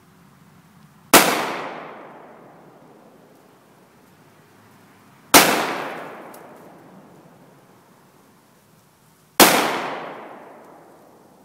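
Three 9mm pistol shots about four seconds apart, fired at a steel target plate. Each shot is followed by a long echo that fades over about two seconds.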